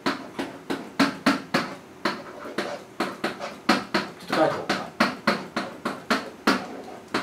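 Pen knocking and tapping against an interactive whiteboard surface during writing, a quick uneven run of sharp taps about three or four a second.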